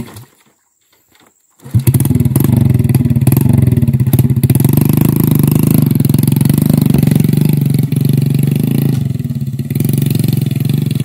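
Small motorcycle engine running under load, hauling rattan baskets piled with oil palm fruit bunches. It comes in suddenly about two seconds in and rises in pitch as it speeds up, then runs steadily.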